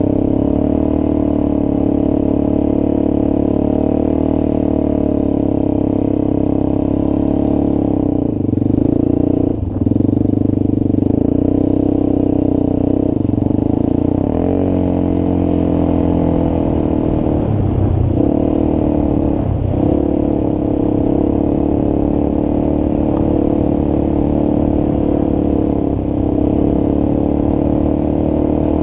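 Honda TRX400EX ATV's single-cylinder four-stroke engine running under way, its note dipping and changing briefly about eight to ten seconds in and again around eighteen to twenty seconds.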